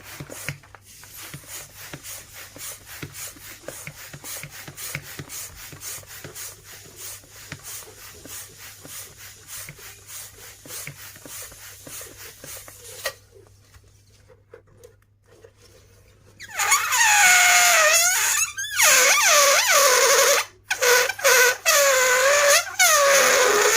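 Quick, regular rubbing strokes, about four a second. After a short pause a rubber balloon squeals loudly, its pitch wavering and gliding up and down, broken by a few brief gaps.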